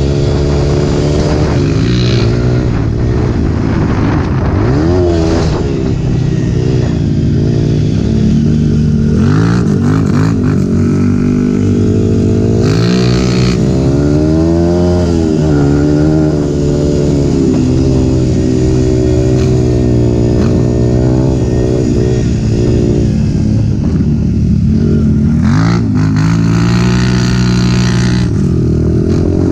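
Small off-road vehicle engine running under way, its revs rising and falling again and again as the throttle is opened and eased off, with steadier stretches between.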